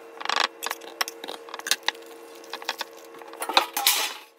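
Clicks and clinks of a knife against a glass bowl as a raw beef heart is cut open, then plastic wrapping crinkling in a short noisy stretch near the end.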